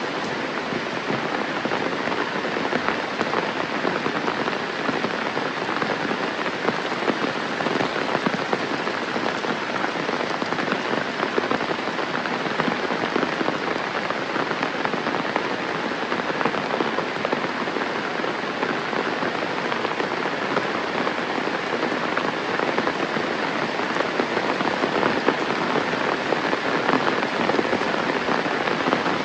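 Steady rain falling: a dense, even hiss made of many small drop hits.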